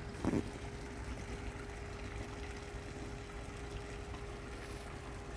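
Water splashing from a swimming pool's small fountain jets, over a low rumble and a faint steady hum, with a brief bump just after the start.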